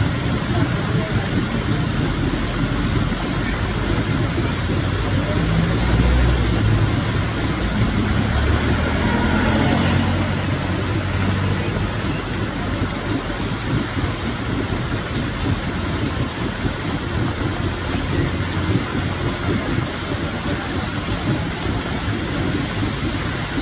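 Rainwater gushing from a drain pipe outlet and splashing onto wet ground in heavy rain: a steady rushing, splashing noise. A low rumble swells and fades around the middle.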